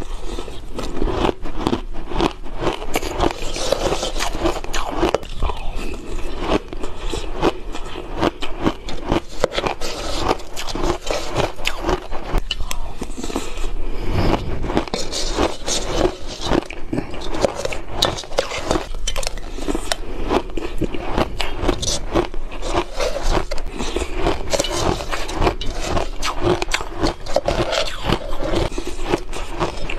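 Crushed ice crunching as it is chewed, mixed with a metal spoon scraping ice out of a stainless steel bowl: a dense, continuous run of crackles and clicks.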